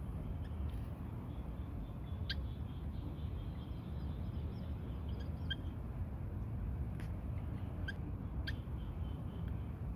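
Cats eating dry kibble: a handful of faint, sharp crunching clicks scattered over a low steady rumble.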